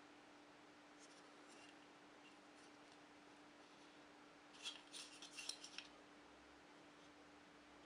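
Near-silent room tone with a faint steady hum. About halfway through comes a short run of small, crisp clicks and rustles from the braided-line spool and its packaging being handled.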